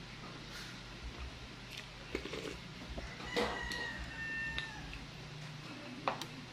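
Eating sounds: a wooden spoon clinking against the dishes a few times, about two, three and six seconds in. A drawn-out animal call sounds in the background from about three to nearly five seconds in.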